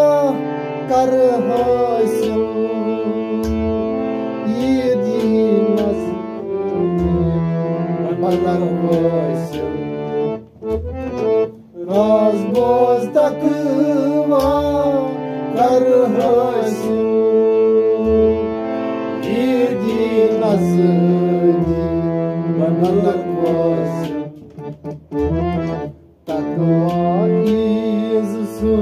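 A harmonium playing a melody with steady reed chords under a man's singing voice, accompanied by regular hand strokes on a clay pot drum. The music drops out briefly twice, about ten seconds in and again near the end.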